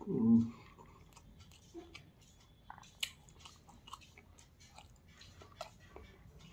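A person chewing a mouthful of chicken curry and rice, with faint scattered wet smacks and clicks of the mouth. A brief vocal sound comes right at the start.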